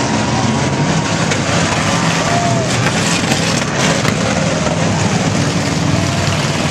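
Several demo cross race cars' engines running and revving together as they race on a dirt track, a loud, unbroken din with engine notes rising and falling.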